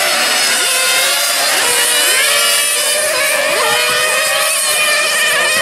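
Several 1/8-scale nitro RC racing cars' small glow engines running at high revs together. Their overlapping high-pitched whines rise and fall over and over as the cars accelerate and lift off around the track.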